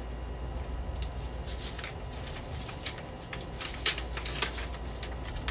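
A folded paper instruction leaflet being handled and unfolded: short, crisp paper crackles and rustles, sparse at first and more frequent toward the end, over a steady low hum.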